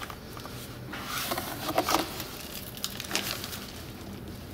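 Gloved hands handling and turning over an emptied plastic charcoal canister housing: a scattering of light scrapes, taps and rustles, most about one to two seconds in and again around three seconds in.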